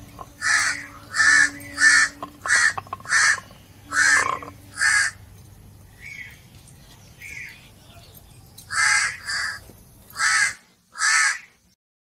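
Crows cawing repeatedly: a quick run of about seven short caws in the first five seconds, two fainter ones, then four more near the end.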